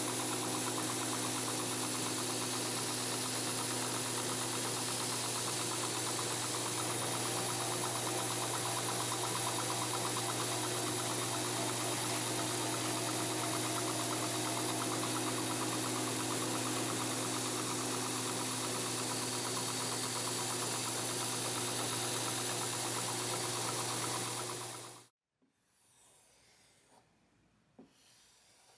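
Belt grinder motor and sanding belt running steadily while a knife edge is sharpened on the belt. The noise cuts off suddenly about 25 seconds in, followed by faint rubbing of the blade being stropped on leather.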